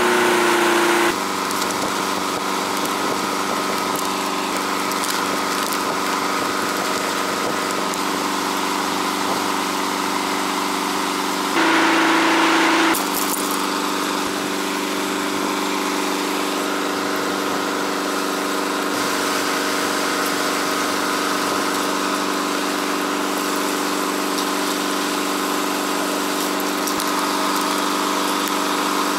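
Bass boat's outboard motor running at a steady, even pitch. It is louder for about the first second and again briefly about twelve seconds in.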